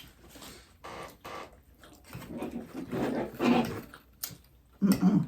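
Close-miked chewing and lip-smacking from someone eating a toasted grinder sandwich, in irregular wet mouth sounds with a few clicks.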